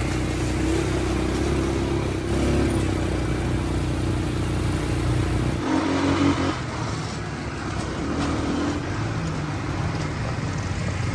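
ATV (quad bike) engines running as they are ridden over dirt and mud tracks. The engine sound changes suddenly a little past halfway.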